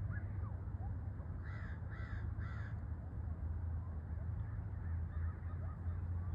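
Black-billed magpie giving three harsh chattering calls about half a second apart, over a steady low rumble. Faint short chirps sound here and there.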